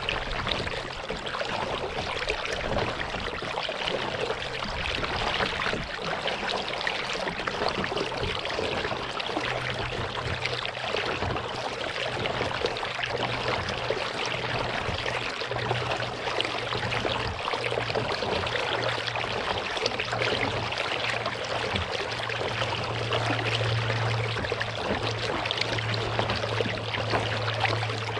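Kayak paddle working the lake water: continuous splashing and trickling as water runs off the paddle and moves along the hull. A low steady hum sits underneath, stronger from about ten seconds in.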